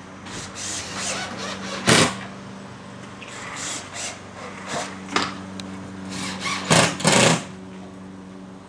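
Wooden playset parts being worked: irregular short scrapes and knocks of wood on wood, the loudest about two seconds in and two close together near the end, over a steady low hum.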